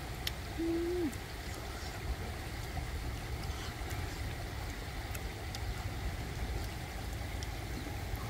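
Steady low rumble of a rushing river, with a single short hooting tone about half a second long near the start that drops in pitch as it ends. Faint clicks come through now and then.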